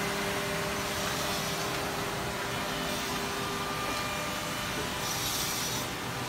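CNC double-end oval tenoning machine running steadily, its spindle motors and dust extraction giving a whirring hum with faint steady tones. A brighter hiss rises briefly about five seconds in.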